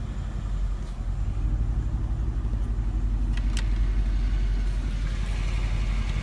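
Mercedes-AMG C63 S twin-turbo 4.0-litre V8 idling steadily in Park, heard from inside the cabin as a low, even burble. Two quick clicks a little over three seconds in come from the drive-mode switch on the centre console being pressed.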